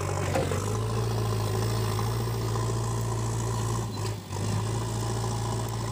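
An engine running steadily with a low, even hum, dipping briefly about four seconds in.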